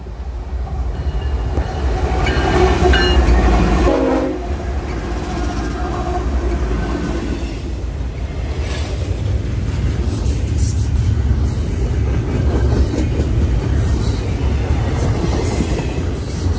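Diesel freight locomotives sound their horn as they approach, the horn dropping in pitch as they pass about four seconds in. The deep rumble of the engines then gives way to the steady rolling clatter of double-stack container cars, with scattered clicks from the wheels on the rail joints.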